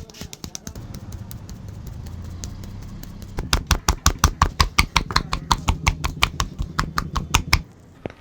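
Rapid, even hand tapping on a person's body during a massage: about six sharp strikes a second, starting about three and a half seconds in and stopping abruptly near the end. A low steady hum with faint ticks sits under the first part.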